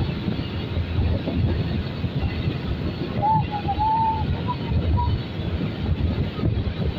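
Motorcycle ride noise: steady wind rush over the microphone with the low drone of the engine and tyres on asphalt. A few seconds in, a short high wavering tone is heard for about a second and a half, followed by two brief blips.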